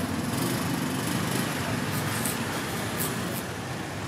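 Steady rumble of street traffic with a small engine running, and a few faint light clicks over it.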